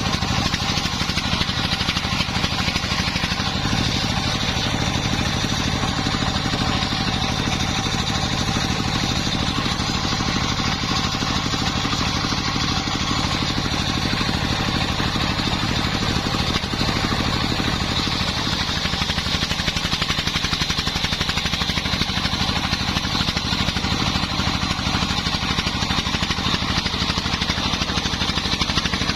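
Engine driving a homemade circular saw rig, running steadily at constant speed, with a faint steady high tone above it.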